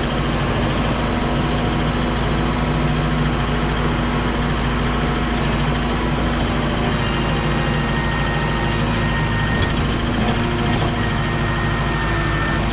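Heavy work-vehicle engine running steadily at constant speed.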